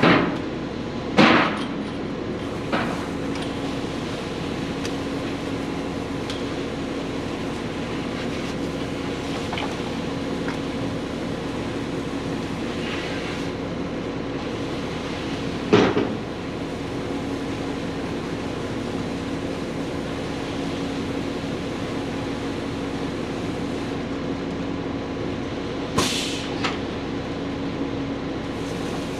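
An engine running steadily, with three sharp knocks or clanks: about a second in, about midway, and near the end.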